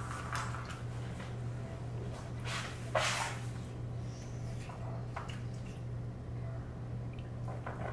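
Soup being stirred in a pot with a wooden spoon: a few soft sloshing, scraping strokes, the loudest about three seconds in, over a low steady hum.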